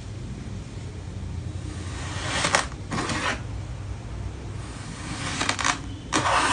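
A blade slicing through packed kinetic sand, giving short gritty crunching scrapes: two in the middle and two more near the end, over a steady low hum.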